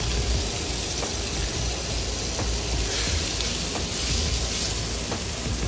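Smoked sausages sizzling steadily on a hot gas grill, with a few faint clicks as metal tongs turn them.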